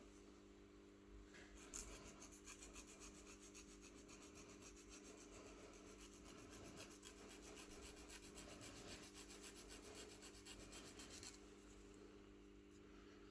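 Faint, rapid scraping: a hand tool rubbing back and forth in quick, even strokes on a phone during a battery replacement. It starts about two seconds in and stops about eleven seconds in, over a steady low hum.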